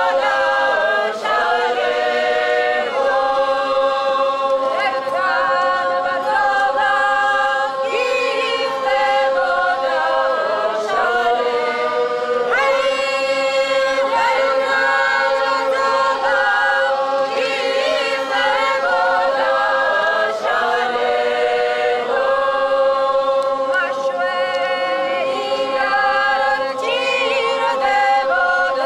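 Several voices singing unaccompanied in a traditional Georgian polyphonic song: a steady drone note is held beneath upper voices whose melody moves over it.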